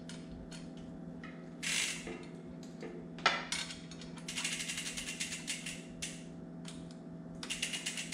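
Bicycle chain being put back onto a new chainring: light metal clinks and a sharp clack about three seconds in, then two runs of rapid, even clicking from the drivetrain.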